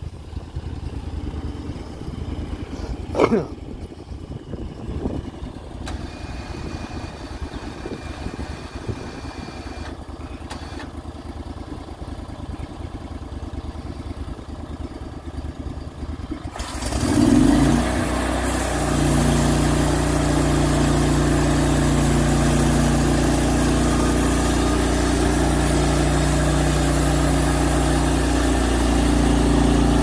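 Portable band sawmill's gasoline engine idling low, then revving up sharply just past the halfway point and running steadily at speed to drive the band blade. A single sharp click sounds about three seconds in.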